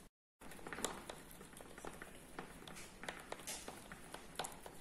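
Homemade fabric paint being stirred in a small glass jar with a paintbrush handle: faint, irregular clicks and taps of the stirrer against the glass.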